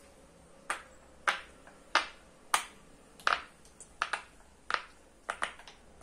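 Round silicone pop-it fidget toy being pressed bubble by bubble: about a dozen sharp pops, one or two a second, some in quick pairs.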